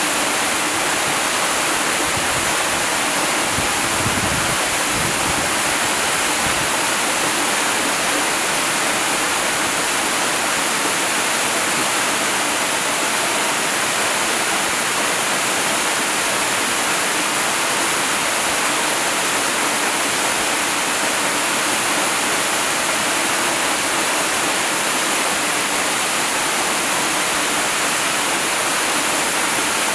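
Waterfall rushing with a steady, even roar of falling water, with a brief deeper rumble a few seconds in.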